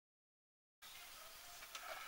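Near silence: the sound track is completely dead at first, then faint room hiss comes in a little under a second in, with one faint tick near the end.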